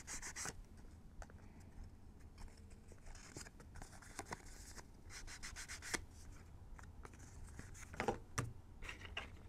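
Soft, faint rubbing and scuffing of a small ink pad being worked along the edges and creased folds of a piece of paper to distress it, with a few light taps and clicks.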